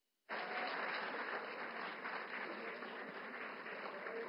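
A large audience applauding, a dense, even clapping that holds steady throughout.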